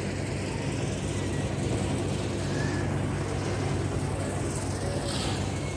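A steady low engine-like hum under even outdoor background noise.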